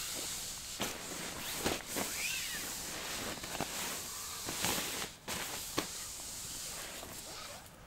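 Sleeping bag and bivy bag fabric rustling and swishing as they are handled and laid out on a sleeping mat, with a short squeak about two seconds in.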